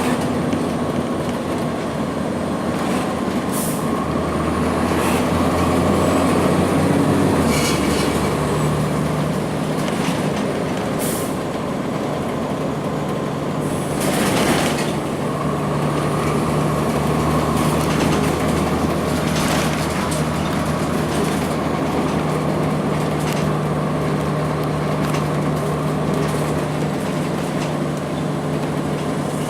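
Cummins ISC diesel engine of a 2002 Blue Bird CS transit bus running under way, its drone shifting in pitch a few times, with several short hisses of air from the bus's air brakes.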